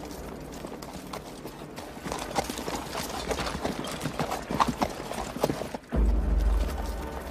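Cavalry charge: many horses galloping, a dense clatter of hoofbeats that builds from about two seconds in. At about six seconds it cuts off and a loud, deep bass rumble takes over.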